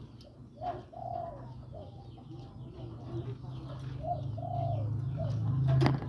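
Spotted dove cooing: two short rolling coo phrases a few seconds apart, its call to draw in a female, over a steady low hum. A sharp knock near the end.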